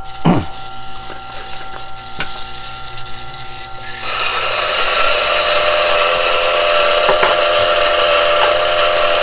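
Turin DF64P espresso grinder's motor running with a steady hum, with a knock just after the start. About four seconds in it turns to a louder, even, gritty grinding as coffee beans go through the flat burrs and grounds drop into the portafilter.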